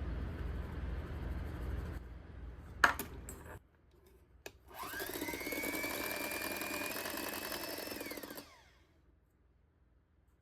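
A steady low rumble, broken by a sharp click about three seconds in, then a small electric kitchen appliance motor starts with a rising whine, runs steadily for about three and a half seconds and winds down as it is switched off.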